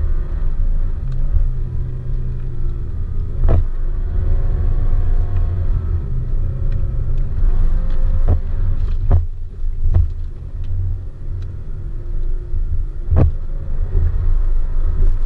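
Nissan Pathfinder SUV driving over sand dunes, heard inside the cabin: a heavy low rumble with the engine note rising and falling under load. Several sharp knocks from the body and suspension, about 3.5 s in, three between 8 and 10 s, and one near 13 s.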